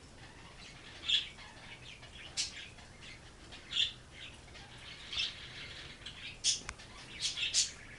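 Faint, short high-pitched chirps repeating roughly every second and a half, with a few quicker chirps close together near the end.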